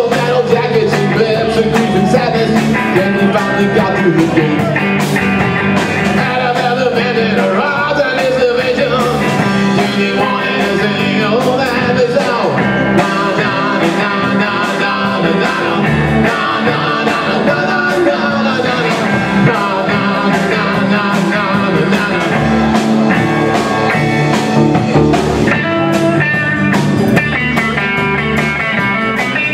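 Live rock band playing electric guitars over a drum kit.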